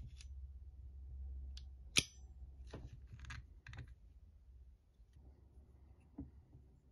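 Light metal clicks from a French Model 1935A pistol's steel frame and its self-contained trigger pack being handled and separated by hand: one sharp click about two seconds in, a few softer clicks over the next two seconds, and a faint one near the end.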